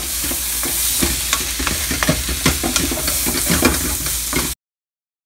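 Wooden spoon stirring and scraping a sizzling stuffing mixture of browned onions and meat in a frying pan, a steady sizzle with quick scraping strokes. The sound cuts off abruptly near the end.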